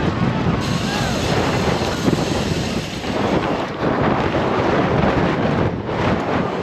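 Steady wind noise buffeting the microphone during a BMX race, with a few brief yells early on.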